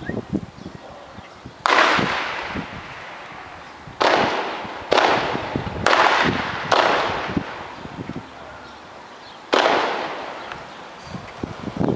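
Gunshots: six heavy reports spread over about eight seconds, irregularly spaced, each one followed by a long echo that dies away slowly.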